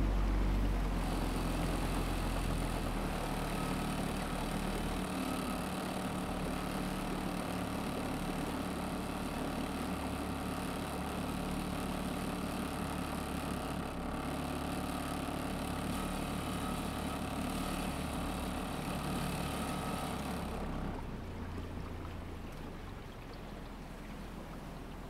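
A boat's motor running steadily under way. About twenty seconds in, its sound turns quieter and duller.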